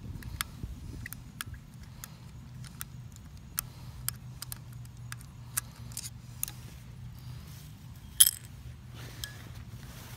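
Scattered light metallic clicks and clinks of small tools and carburetor parts being handled while the jets are taken out of a Kawasaki Ninja 250R carburetor, with one sharper click about eight seconds in. A steady low hum runs underneath.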